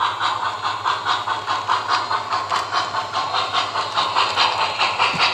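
Model steam locomotive's sound system chuffing steadily, about five chuffs a second, as the O scale train runs.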